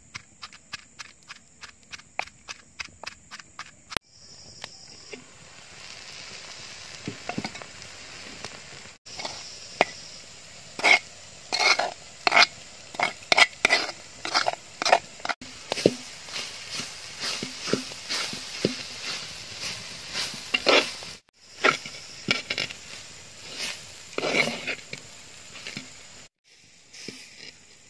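A spoon stirring and scraping grated coconut and jackfruit in a clay pot, with irregular loud scrapes over a steady frying hiss. It opens with a regular ticking at about four a second.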